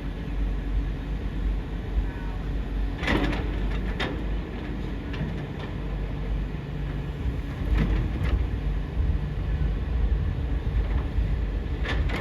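Excavator at work: a steady low engine rumble, with a few sharp knocks every few seconds.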